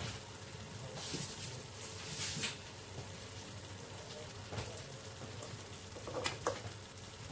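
Jollof rice sizzling and crackling softly in a covered pan as it cooks dry, without any liquid, with louder hissing spells about one and two seconds in.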